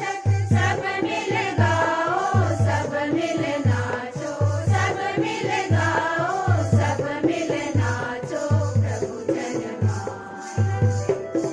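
A mixed choir of women and men singing a Christmas carol together, over a steady low beat.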